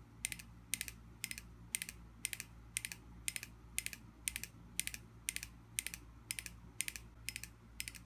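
Balisong (butterfly knife), a Bladerunners Systems Alpha Beast kukri, being galloped: its handle clicks against the blade in a steady galloping rhythm. Each beat is a short cluster of sharp metallic clicks, about twice a second.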